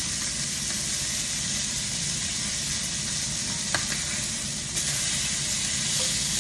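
Cajun-seasoned chicken tenders sizzling steadily in hot oil in a cast iron skillet while a spatula works the pieces. There is one light knock a little past halfway, and the sizzle gets louder near the end.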